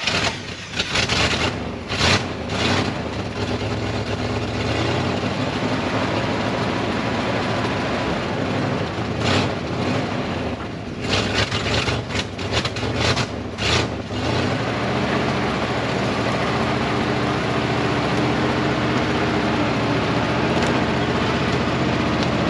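Dodge W300 dump truck's carbureted gasoline engine running, just after a clog and stuck float were cleared from its carburetor. It has several brief louder bursts in the first half, then settles into steadier, deeper running from about two-thirds of the way in as the truck moves off.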